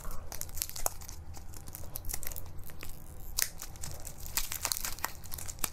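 Clear plastic lollipop wrapper crinkling and crackling as it is pulled off the candy, with many scattered sharp crackles.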